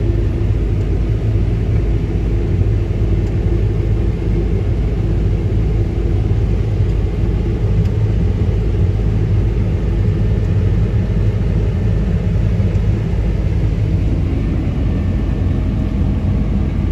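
Combine harvester running during harvest: a steady low engine and machinery rumble with a constant hum, unchanging throughout.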